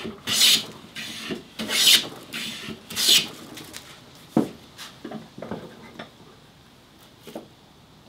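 Hand plane taking three strokes along the edge of a wooden board, each a rasping hiss of the blade cutting a shaving, roughly one every one and a half seconds. A single sharp knock follows, then a few light clicks.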